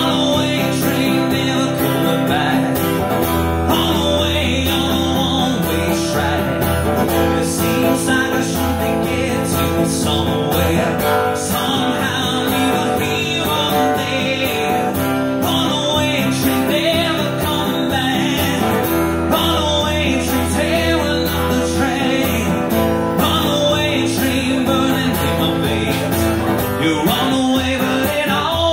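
Acoustic guitar strummed steadily under live singing through a microphone.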